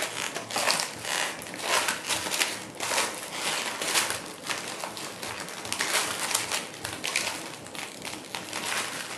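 Cellophane casing crinkling and rustling in the hand as chicken mince is spooned into it, in a run of irregular crackles, with a metal spoon scraping the stainless steel bowl.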